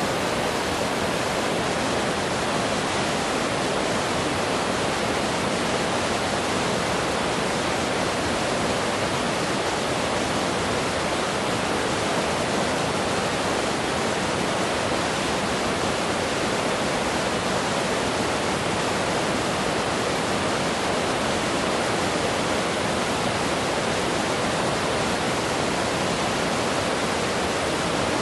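Fast-flowing river rushing over rocks: a steady, dense roar of water with no breaks.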